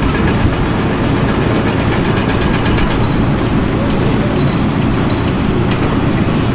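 Loud, steady mechanical rumble of machinery running.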